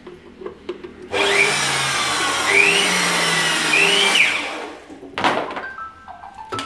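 Corded power tool's electric motor runs for about three seconds, powered through a cord reel to test the reel, then stops; a sharp click follows.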